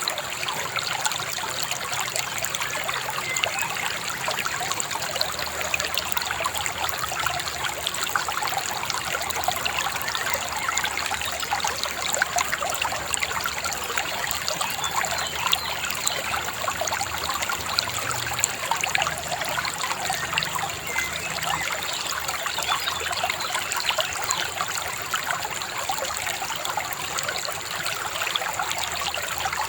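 A small river babbling, with a steady, even rush of trickling and splashing water.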